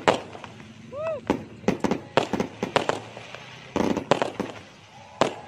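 Aerial fireworks bursting: an irregular string of sharp bangs, thickening into a rapid cluster a little before four seconds in.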